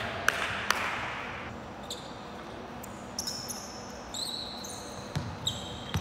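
Basketball bouncing on a hardwood court with sharp thuds near the start, then sneakers squeaking on the floor several times in the second half as players cut and stop.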